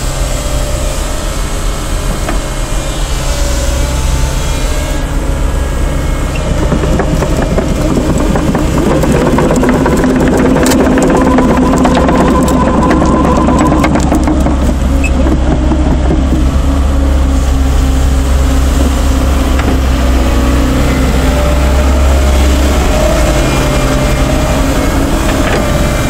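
Volvo EC140BLC excavator's four-cylinder diesel engine running steadily. In the middle stretch it has a dense clattering and a steady whine over it, and the low engine sound grows louder later on.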